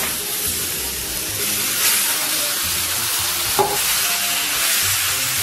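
Marinated sliced lamb sizzling steadily on a hot flat iron griddle plate as chopsticks stir and spread it, with one short click about three and a half seconds in.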